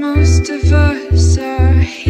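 Background music: a song with a steady pulsing bass beat, about two beats a second, under a melody line.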